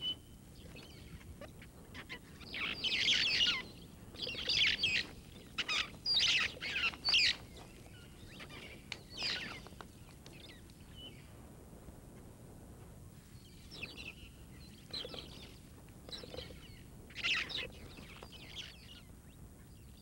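Young red-fronted parrots squawking in a tree-hole nest, harsh calls in bouts with a lull about halfway through: nestlings squabbling over the food brought in by their parents.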